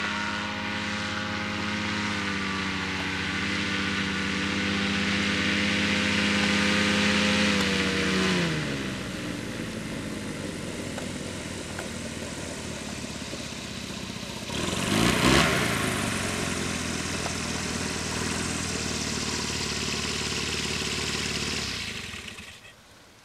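Tandem paramotor trike's engine and propeller running steadily on the approach. About eight seconds in the pitch drops as the throttle comes back, and the engine runs low and rough as the trike rolls on the ground, with a brief loud rush halfway. The engine stops near the end.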